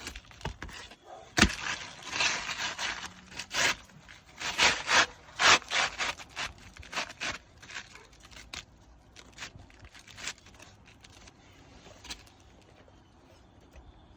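A new asphalt roof shingle being slid and worked into place under the course above, its gritty surface scraping against the shingles in a run of short strokes for several seconds, then dying down to light scuffs. A single sharp knock comes shortly before the scraping.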